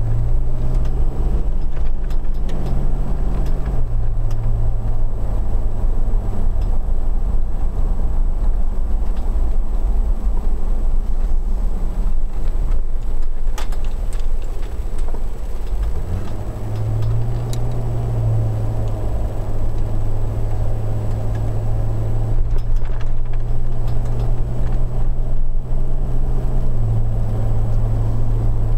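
Car engine and road noise heard from inside the moving car, a steady low hum. The engine note drops a couple of times early on, eases off for a while, then picks up strongly about sixteen seconds in as the car accelerates, with another step in pitch near the end.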